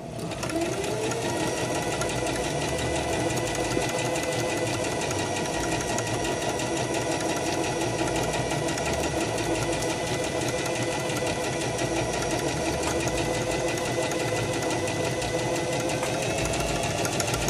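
Singer Heavy Duty electric sewing machine stitching a curved spiral seam through fabric. Its motor whine rises as it starts in the first second, then runs at a steady speed, with the needle ticking rapidly.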